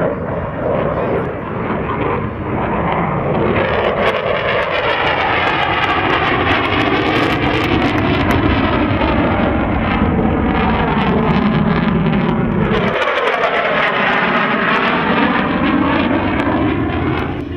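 F-16 fighter jet's engine running loud as the jet flies past, its pitch sweeping as it goes by. The low rumble drops away suddenly about thirteen seconds in.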